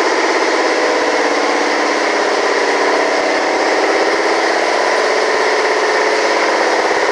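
A motor or engine running steadily and loudly, a dense droning hum with a slightly wavering pitch.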